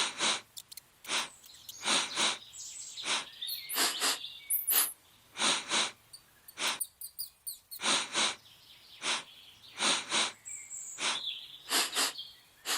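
Short high chirping squeaks, often in pairs, about one a second, played from the mouse video on the computer.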